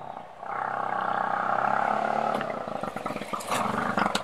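Auto-rickshaw (three-wheeler) engine running as it pulls up, a steady drone that breaks into an uneven putter over the last couple of seconds as it slows to a stop.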